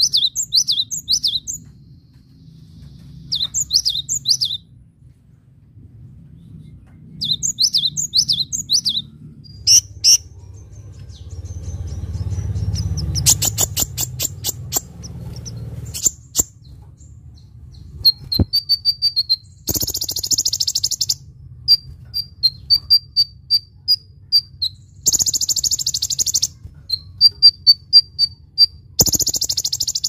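A cinereous tit sings three bouts of repeated high whistled phrases. From a little past halfway, a sunbird gives high thin chirps and short, dense buzzy trills.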